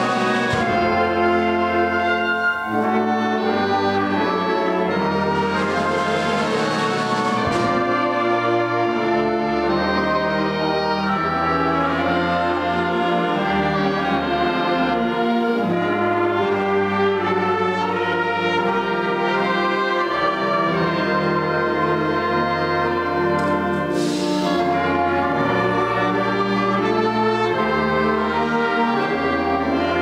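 A full concert band playing a piece live: flutes, clarinets, saxophones, trumpets and trombones over a drum kit and timpani, holding chords under moving melody lines.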